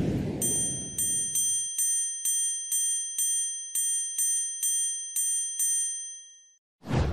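Intro sound effects: a whoosh, then a bright bell-like ding struck about a dozen times at the same pitch, a little over two a second, each ring fading before the next. Another whoosh starts just before the end.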